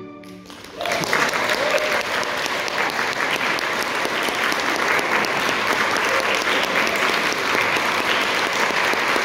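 The string orchestra's last chord dies away, and about a second in applause breaks out: steady clapping that keeps going.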